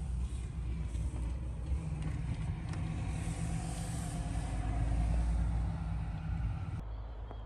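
Kei van on the move: a steady low rumble of engine and road with a hiss of tyre and wind noise, swelling a little partway through. About seven seconds in, the hiss drops away abruptly, leaving the low rumble.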